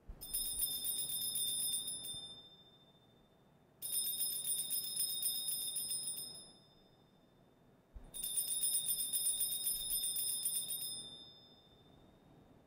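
Altar bells shaken three times, each peal a shimmering high ringing of about two to three seconds that fades out. This rings out at the elevation of the consecrated host at Mass.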